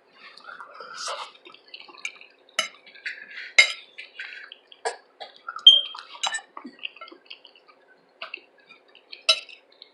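Close-miked eating: irregular clicks of a utensil on a plate mixed with wet chewing and mouth smacking of mixed vegetables. The sharpest click comes about halfway through.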